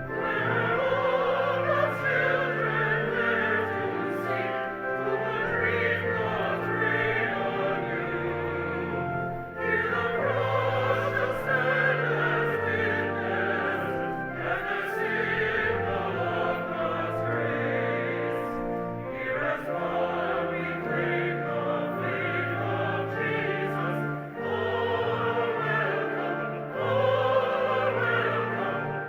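A hymn sung by a group of voices over an accompaniment of held bass notes, with short breaks between phrases.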